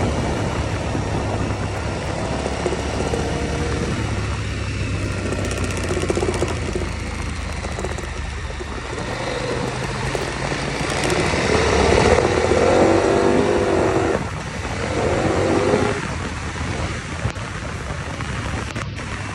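KTM 1190 Adventure's V-twin engine running as the motorcycle rides along a dirt road, over a steady rush of wind noise. About halfway through it gets louder for a few seconds, its pitch rising and falling.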